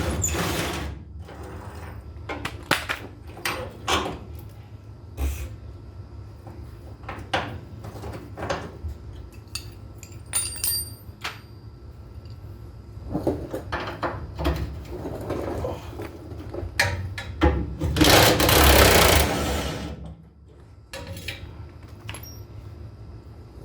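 Hand tools working on a stuck fastener under a truck: scattered metal clicks and knocks, and about 18 seconds in a loud burst of about two seconds from a fast-hammering power tool.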